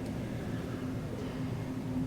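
Steady low hum of an elevator car running as it rides up, heard from inside the car.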